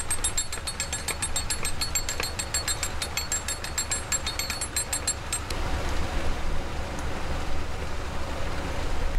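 Canal lock paddle gear being wound up with a windlass, its ratchet pawl clicking rapidly and evenly for about five seconds. Then the clicking stops and the rush of water through the opened paddle grows steadily louder.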